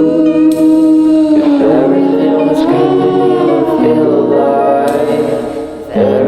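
Background music: choir-like vocal music with long held sung notes that shift in pitch, dipping briefly near the end.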